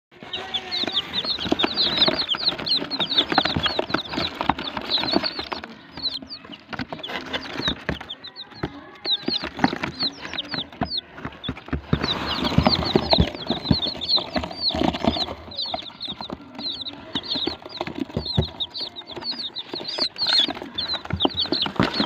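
A group of baby chicks peeping nonstop, many short high chirps falling in pitch and overlapping, with light knocks and rustling underneath.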